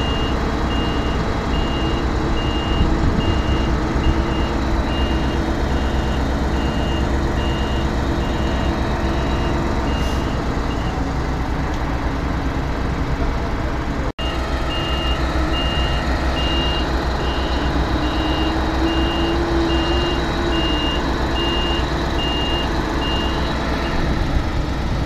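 Heavy diesel machinery running hard during a mud recovery, with a reversing alarm beeping in a steady pulse over the engine noise. The beeping stops partway through and then resumes, and an engine's pitch rises and falls in the second half.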